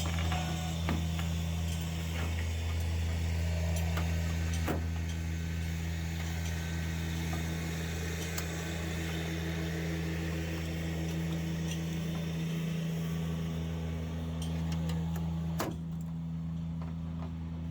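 An engine running at a steady speed, with a few knocks and clicks over it; a sharper knock comes near the end, after which the running sound is a little quieter.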